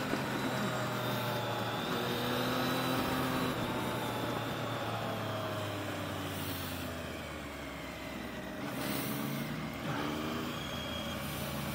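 Motorcycle engine with wind rush, heard from a helmet-mounted camera while riding on a track. The engine note falls steadily from about four to eight seconds in as the bike slows for a corner, then rises again from about nine seconds in as the throttle opens.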